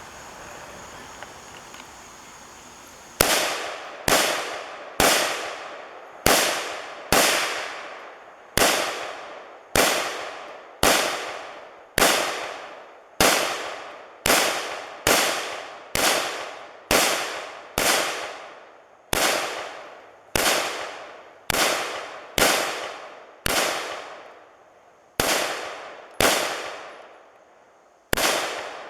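Home-built 5.56 rifle fired in slow, steady semi-automatic shots, about one a second and a couple of dozen in all, each crack followed by a short echoing tail. The string begins about three seconds in, with a couple of brief pauses near the end.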